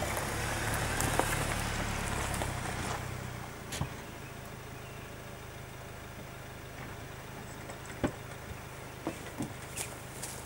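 Opel Mokka 4x4 engine running at low speed as the car creeps down a dirt slope under hill descent control, its tyres crunching on gravel and stones as it passes close. The sound fades out about three and a half seconds in, leaving a quieter background with a few scattered clicks.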